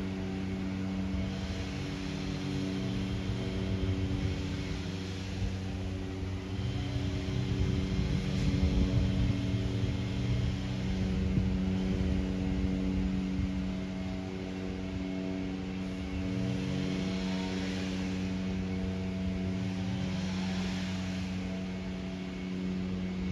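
Distant propeller aeroplane flying overhead, its engine drone wavering and swelling, loudest mid-way. A steady hum runs underneath throughout.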